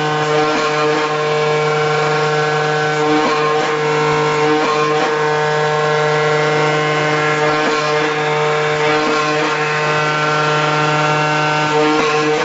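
CNC flatbed mat-cutting machine running as its cutting head cuts through a vinyl coil mat: a steady hum of several even tones, with a few faint clicks.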